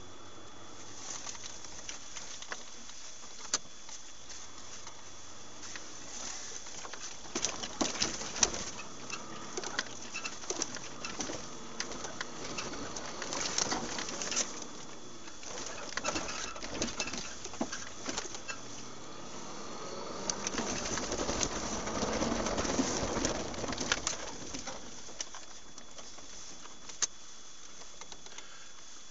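Dashcam audio from inside a moving vehicle: scattered sharp rattles and knocks from the cab over a steady background hiss and a faint constant whine. A muffled swell of sound rises and fades a few seconds before the end.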